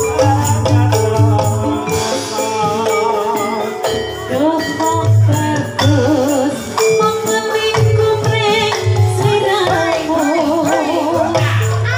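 Live Javanese jathilan accompaniment music: an ensemble of drum and percussion strokes under held tones and a wavering melodic line.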